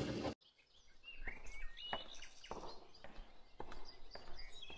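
Footsteps climbing tiled stairs, roughly two steps a second, with birds chirping faintly in the background.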